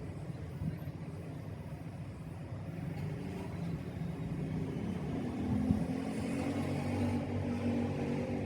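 City road traffic rumbling, with a vehicle engine growing louder through the second half as it comes closer, and one short knock partway through.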